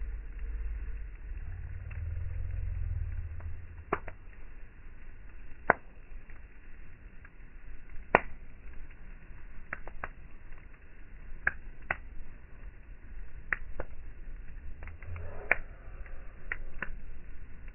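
Wood campfire crackling: irregular sharp pops and snaps from the burning logs, one every second or two, with a low rumble strongest in the first few seconds.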